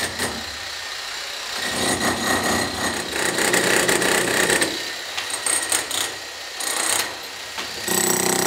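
Demolition hammer chiselling into a concrete floor laid over rebar, rattling in bursts with short pauses and running steadily near the end.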